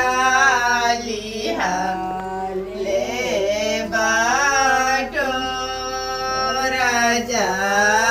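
A Chhath devotional folk song (chhath geet) sung by a woman, in long held notes that glide between pitches.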